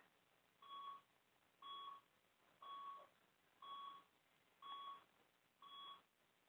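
Electronic beeping from cardiac electrophysiology lab equipment: six short, identical mid-pitched beeps, evenly spaced one a second.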